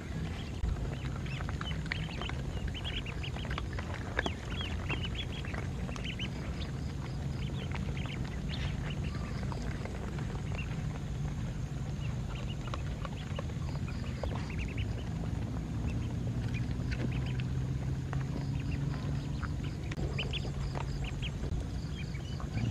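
A flock of ducklings peeping: many short, high chirps, thick at the start and again near the end, over a low steady hum.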